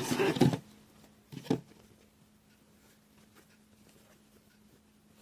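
Wired craft ribbon being handled: a short rustle at the start and another about a second and a half in, then faint light ticks over a low steady hum.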